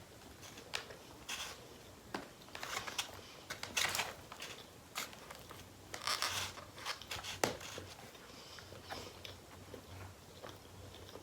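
Close-miked eating: a person chewing and biting into food, with a string of short wet clicks and crackles, busiest in the middle and loudest about four and six seconds in.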